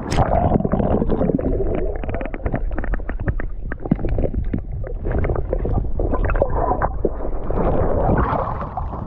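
A splash as the camera plunges into the creek, then muffled underwater sound: a low rumble full of quick clicks and knocks as a hand scrabbles among the stones of the creek bed to grab a crawfish.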